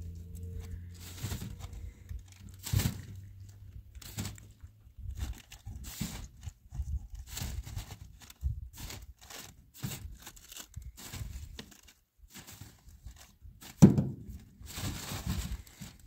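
Irregular rustling, tearing and crackling with scattered knocks, like something being handled or worked by hand, with one louder knock near the end.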